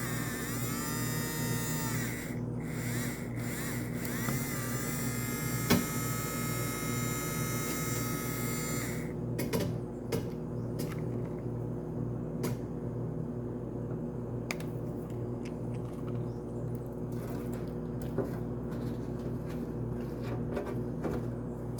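Small electric motor, likely the mini washing machine's, running with a steady hum. A high whine sounds over it until about nine seconds in and then stops, after which there are scattered light clicks.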